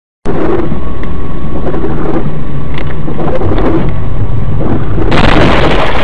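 Loud, distorted rumble of a vehicle on the road as picked up by a dashcam, with a harsher burst of noise about five seconds in.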